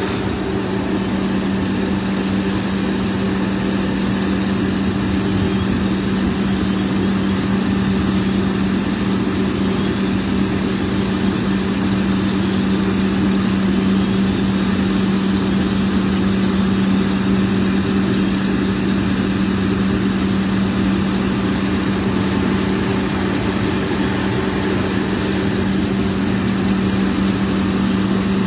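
An engine running steadily at one constant speed, an even, unbroken hum.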